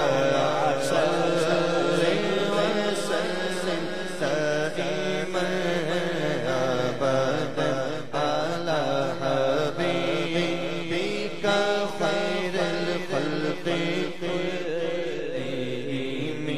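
A man's solo voice singing a naat in a chanting style, the melody winding up and down over a steady low drone.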